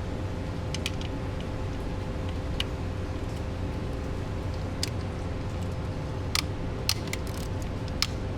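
Scattered light clicks and taps, about eight of them at uneven moments, of hand tools on screws and plastic panels as a scooter's air filter housing is taken apart, over a steady low hum.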